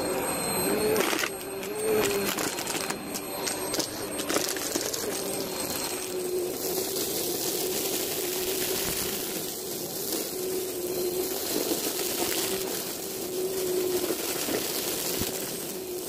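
White upright vacuum cleaner running over carpet, sucking up a litter of confetti, foil and balloon scraps that rattle and clink as they go up, over a steady motor whine. The footage is played at double speed, which raises the pitch.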